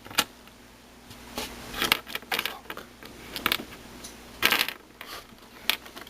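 Plastic pieces of a Meffert's 4x4 puzzle cube clicking and clattering against each other and the ball core as centre pieces are fitted into the core and slid into place; irregular sharp clicks, the loudest a little under two seconds in and about four and a half seconds in.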